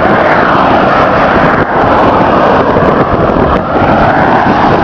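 Loud, steady rush of strong headwind on a bicycle-mounted camera's microphone, mixed with the noise of cars passing on the highway alongside.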